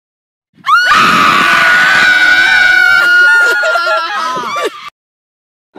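A loud, high-pitched human scream held on one note for about three seconds, then wavering and breaking up before it cuts off.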